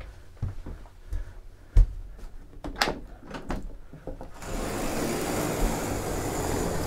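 Knocks and clunks of a sliding roof hatch in a motor yacht's hardtop being pulled shut by hand by its chrome handle and latched. About four seconds in, a steady hiss starts.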